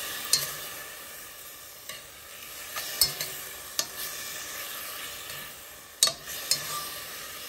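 Beef sizzling as it is stir-fried in a pot, browned with soup soy sauce and anchovy fish sauce before the water goes in for seaweed soup. A steady sizzle, with sharp clinks of the stirring utensil against the pot about six times.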